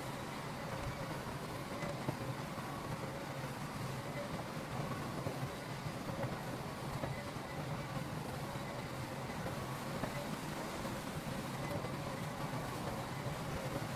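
Heavy diesel engine of earthmoving machinery running steadily, with a constant low drone.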